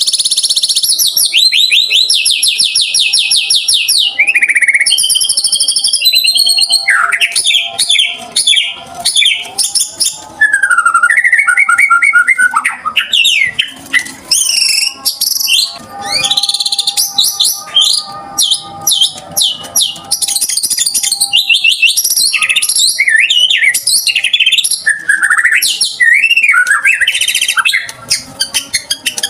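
White-rumped shama singing loudly and without pause, in fast high trills and varied whistled phrases that glide up and down, including rapid canary-like rattling bursts ('tembakan kenari').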